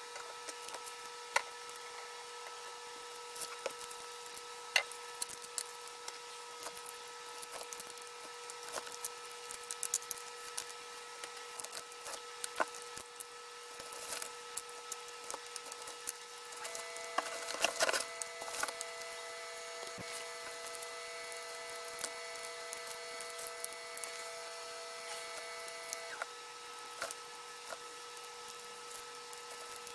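Hands rummaging through a cardboard box of loose flat lithium-ion battery packs and foam packing peanuts: scattered small clicks and clatter of the packs knocking together, with a busier spell of clatter a little past halfway. A faint steady electronic whine runs underneath, and a second higher tone joins it for several seconds after the busy spell.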